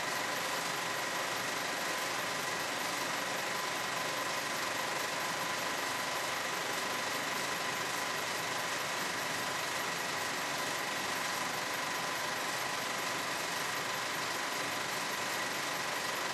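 Constant, unchanging hiss with a faint steady high whine running through it, typical of electrical noise in an audio track.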